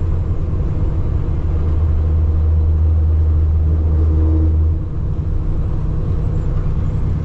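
Cab noise of a semi truck driving on the highway: a steady low drone of the diesel engine and road. The drone swells a little for a few seconds and drops back just before the five-second mark.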